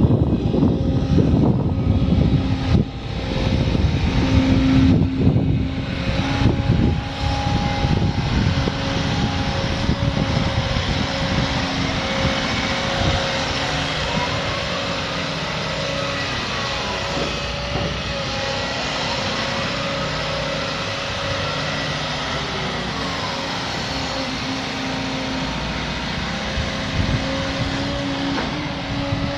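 Volvo EC200E excavator's diesel engine running with a steady hum while the boom and bucket are worked. There is heavier rumbling in the first few seconds, and a faint hydraulic whine rises and falls a few times midway.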